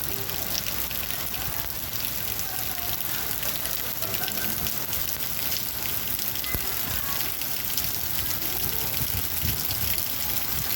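Heavy rain falling: a steady hiss with many drops spattering on nearby surfaces.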